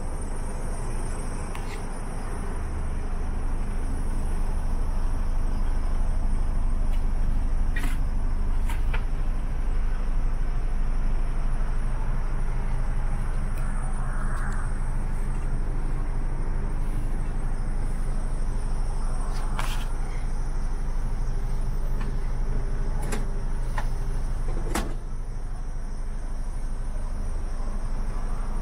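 Mercedes Actros 2551's 510 hp diesel engine idling steadily, heard from inside the cab, with a few short sharp clicks now and then.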